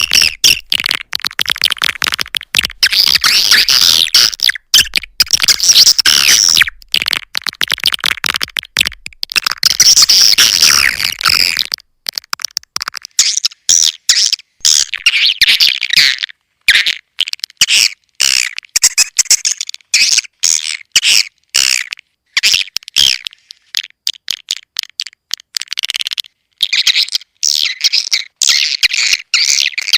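Edible-nest swiftlet calls: a recorded call track of dense, rapid, high twittering chirps, used to lure swiftlets into a bird house. The chirping is continuous at first, breaks into short choppy bursts with gaps about halfway through, and turns dense again near the end.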